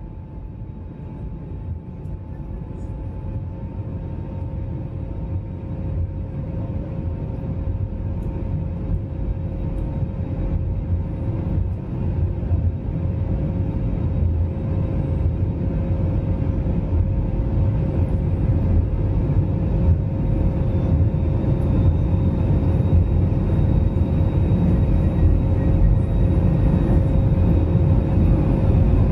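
Airbus A321neo cabin noise: a deep rumble with a steady engine hum that grows steadily louder throughout, typical of the engines spooling up and the jet accelerating down the runway on its takeoff roll.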